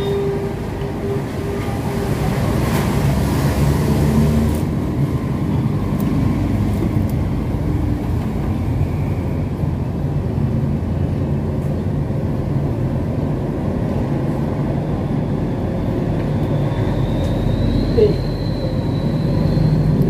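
Steady low mechanical rumble with a few faint clicks.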